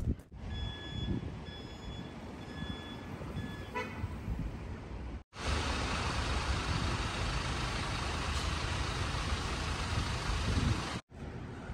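Street traffic noise with an electronic beeper sounding long beeps about once a second. About five seconds in it cuts to louder, steady traffic noise, which stops abruptly near the end.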